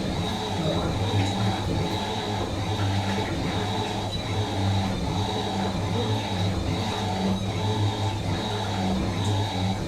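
Fisher & Paykel MW512 washing machine running: a low motor hum that swells and eases in a repeating rhythm, with a faint steady high whine above it.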